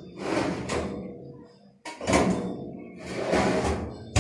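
Stainless steel trolley drawers sliding along their runners in three rumbling, metallic sweeps as they are pushed shut, ending in a sharp knock as one drawer closes.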